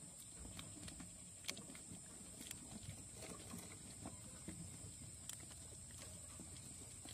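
A group of white rats scuffling and gnawing in a wooden box: faint, irregular sharp clicks and scratches over a steady high hiss.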